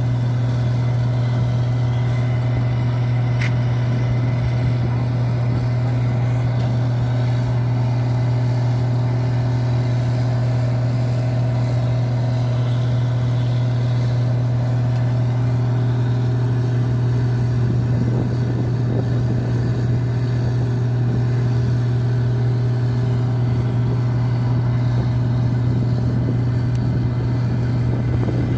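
A steady low engine drone running at constant speed, unchanging in pitch and level.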